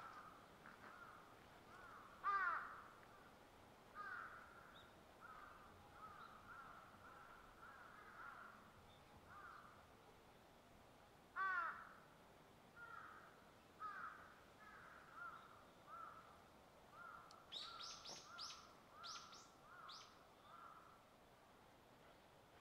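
Birds calling in the trees: a long string of short, repeated calls, with two louder calls about two seconds in and near the middle, and a quick run of higher chirps from a second bird near the end.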